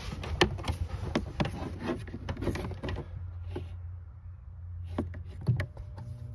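Handling noises: a quick run of clicks and knocks over a low steady hum, thinning out about halfway through, then two louder knocks near the end.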